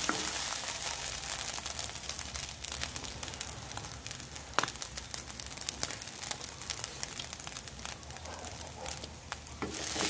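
Garlic fried rice with egg sizzling lightly in a hot wok, a steady scatter of small crackles and pops that slowly grows softer.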